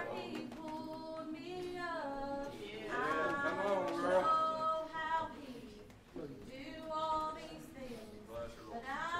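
Voices singing without instruments, a woman's voice the clearest, mixed with speech; held notes that slide between pitches, with a quieter moment about six seconds in.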